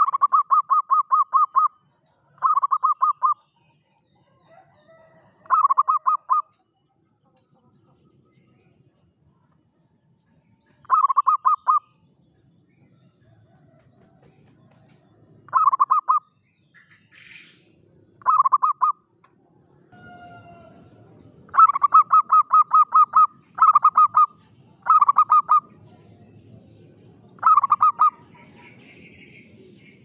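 Zebra dove (perkutut) cooing in about ten bouts of rapid, evenly spaced staccato notes, each bout a second or so long, with longer gaps in the middle and the bouts coming close together near the end.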